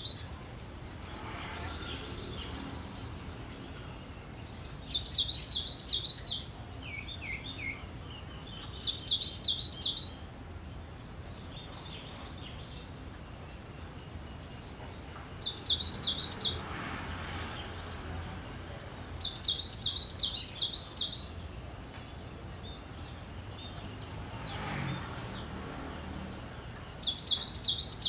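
Cinereous tit (gelatik batu) in full song: short loud phrases of rapid, repeated high notes, coming every few seconds, with a single brief lower call after the second phrase.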